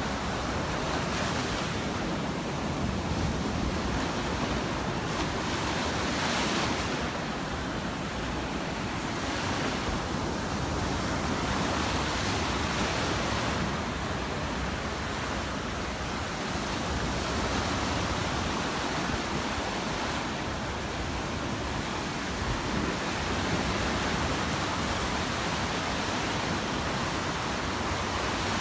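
Gulf of Mexico surf breaking and washing up the beach: a steady rushing hiss that swells and eases every few seconds.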